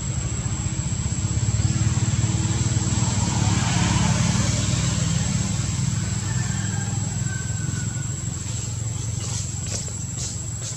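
Low rumble of a passing motor vehicle, swelling a few seconds in and then slowly fading, with a steady high-pitched whine above it and a few light clicks near the end.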